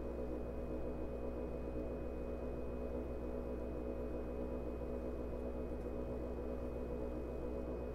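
Steady hum inside a JR 105 series electric train, several even tones over a low drone with no rail-joint clatter and no change in pitch.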